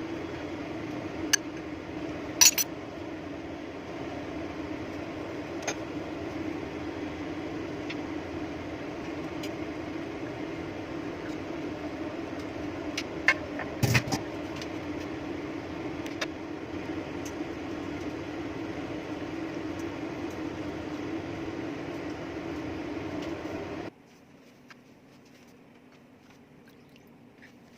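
A steady low hum, as of a small motor or household appliance running, with a few light clinks; it cuts off suddenly near the end.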